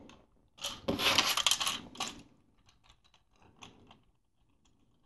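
Small hard-plastic LEGO pieces, tread links and bricks, clicking and rattling as they are handled: a dense clatter for about a second and a half near the start, then a few scattered light clicks.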